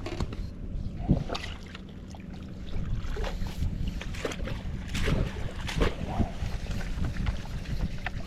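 Small fishing boat afloat: water slapping and splashing at the hull over a low steady rumble, with scattered knocks and clicks.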